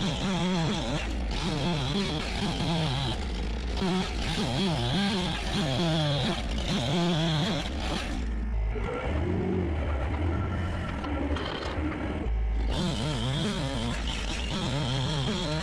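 Engine running with its pitch wavering up and down. From about eight seconds in it drops to a lower, duller running for some four seconds, then picks up again.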